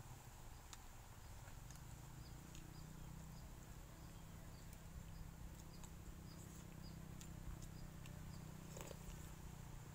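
Faint outdoor ambience: insects buzzing steadily with a small chirp repeating about twice a second, and a low steady hum that sets in after a second or two. Occasional light clicks of a metal spoon against the soup bowl.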